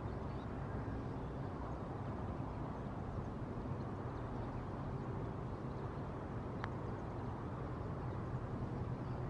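Steady low outdoor rumble, with a single faint, sharp click about two-thirds of the way through: a putter striking a golf ball on a long putt.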